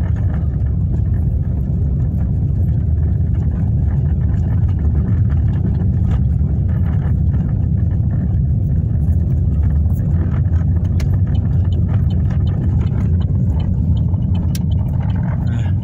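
Steady low rumble of a car driving, with engine and road noise heard from inside the cabin.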